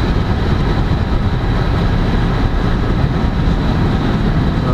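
Steady road and engine noise inside a car cabin at motorway speed, with tyres running on a wet, rain-soaked road.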